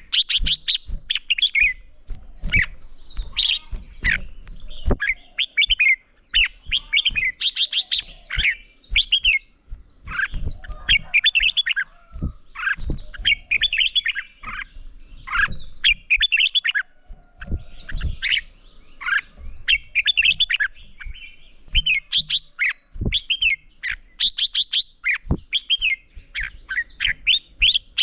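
Red-whiskered bulbul singing: quick, repeated phrases of bright whistled notes that slide up and down, one after another with only short pauses, in a competitive, full-voiced song. Short soft knocks sound between the phrases.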